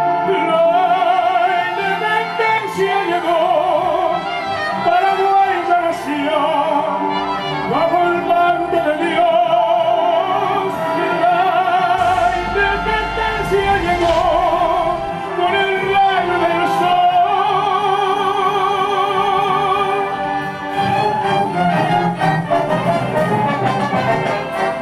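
Operatic male voice singing long held notes with wide vibrato over a full symphony orchestra, with a choir joining in.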